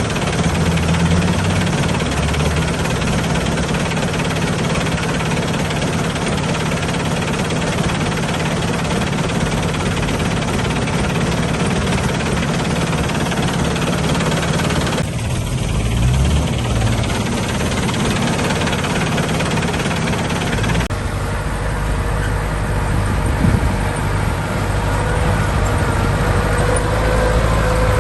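Heavy diesel engines of earth-moving machinery running steadily, with abrupt changes in the engine sound about halfway through and again about three-quarters through. Near the end a whine slowly rises in pitch over the engine.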